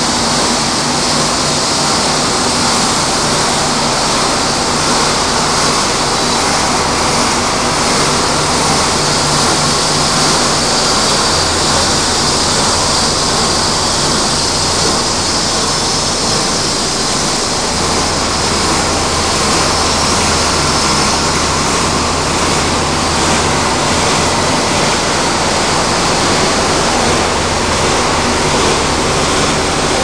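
Plastic recycling line machinery running: a loud, steady dense noise with a low motor hum underneath.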